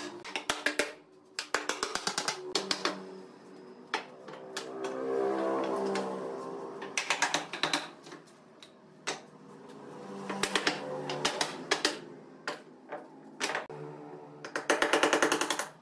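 Runs of rapid mechanical clicking, roughly ten clicks a second, each run lasting about a second, with the densest run near the end. Steady tones rise and fall between the runs.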